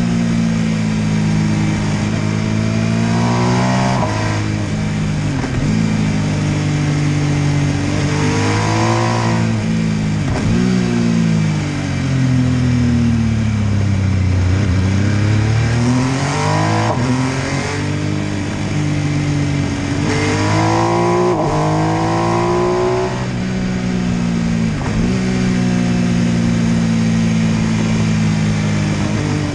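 MV Agusta F3 800's three-cylinder engine pulling hard through the gears, its pitch climbing and then dropping sharply at each gear change. About halfway through it slows right down, then picks up again.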